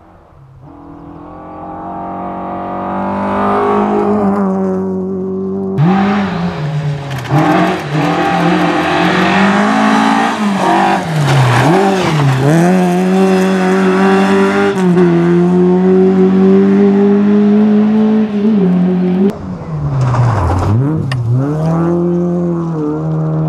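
Rally car engine at high revs on a gravel stage. It swells as the car approaches over the first few seconds, then runs loud, its revs dropping and climbing back several times, over a hiss of tyres on gravel.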